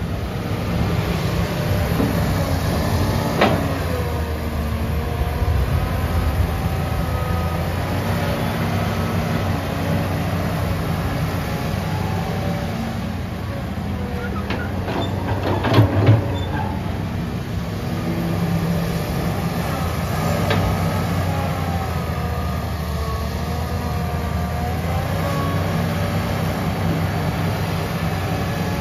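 Komatsu PC150-5 hydraulic excavator running steadily, its higher pitch gliding up and down as it works. A sharp knock comes a few seconds in, and a louder cluster of knocks near the middle.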